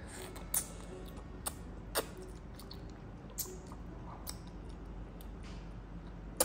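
Toddler slurping spaghetti strands and chewing: a series of short mouth smacks and slurps at irregular intervals.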